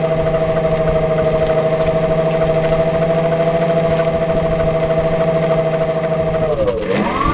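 A motor running at a steady speed. About six and a half seconds in, its pitch dips, then rises quickly.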